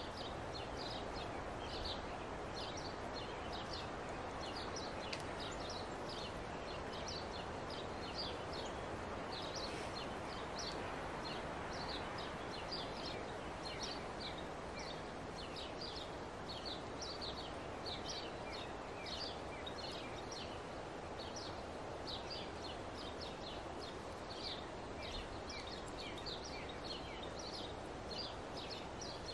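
Small birds chirping, many short high notes in quick succession throughout, over a steady rushing background.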